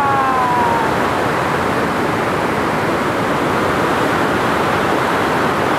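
Large whitewater waterfall rushing: a loud, steady wash of falling water.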